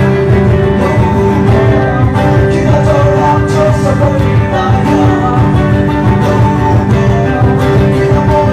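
Guitar-led music: a guitar playing a melody over a steady low rhythm, with some singing.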